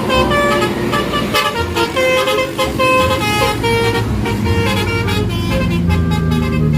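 Telolet bus horn playing a quick tune of short tooting notes, over the bus engine's steady low running.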